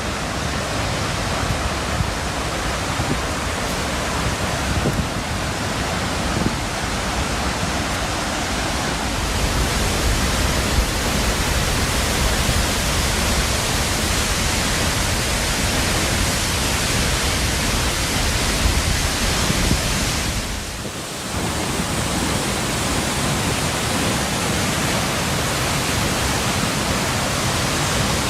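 Large single-drop waterfall pouring into its pool: a steady, loud rushing that dips briefly about three-quarters of the way through.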